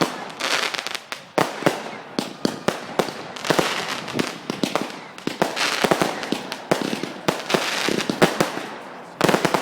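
Fireworks going off: a continuous irregular run of sharp bangs and cracks, with crackling between them.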